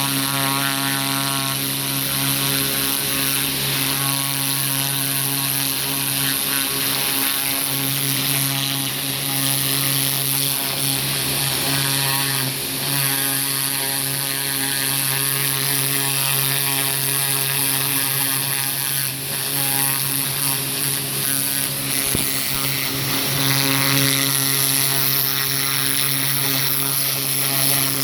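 Small pressure washer running steadily, its pump giving a steady hum under the hiss of the water jet as it sprays a turkey skin.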